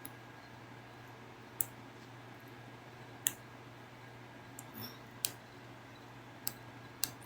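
Computer mouse clicking: about five single sharp clicks, a second or two apart, over a low steady electrical hum.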